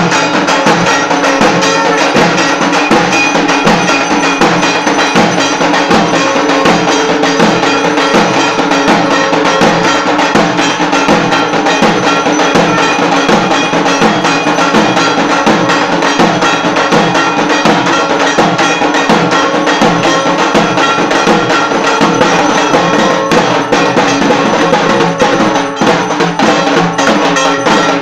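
Loud, continuous clanging of bells and hand cymbals struck together in a dense, unbroken ringing, as used in Hindu temple worship.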